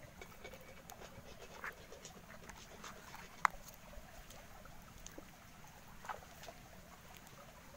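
Hands working spice marinade into raw chicken pieces in a steel plate: soft wet squelching with scattered small clicks and rustles of a spice packet, and one sharper click about three and a half seconds in.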